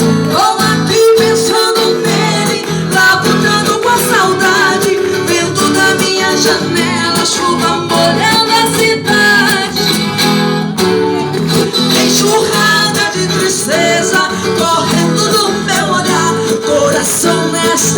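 Music: a Latin American song's instrumental passage led by guitar, playing steadily throughout.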